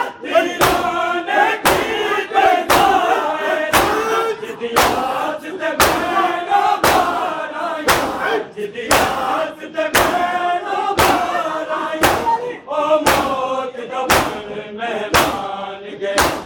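A crowd of Shia mourners doing matam: many men striking their chests with open hands in unison, a loud slap about once a second, over men chanting a Punjabi noha.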